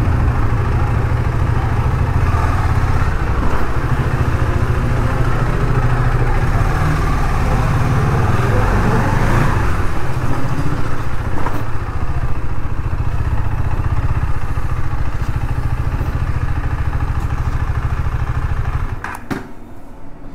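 KTM Duke 250's single-cylinder engine running at low revs while the bike is ridden slowly, then switched off near the end.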